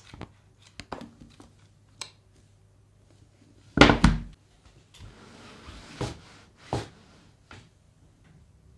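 Books being handled and set down on a surface: scattered light knocks, with two louder thumps close together about four seconds in and a brief rustle just after.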